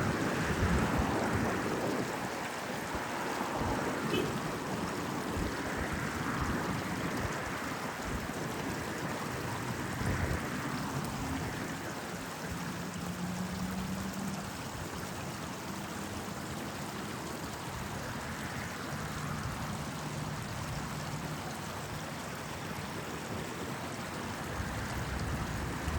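Small stream flowing steadily, with the noise of road traffic underneath; low engine hums from passing vehicles come and go in the middle and near the end.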